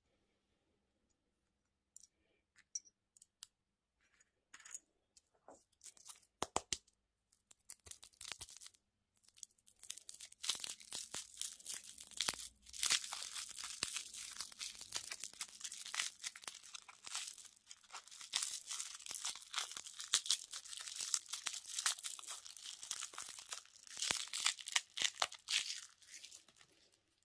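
Candy wrapper being torn open and crinkled: scattered crackles at first, then about ten seconds in a long stretch of steady tearing and crinkling that fades near the end.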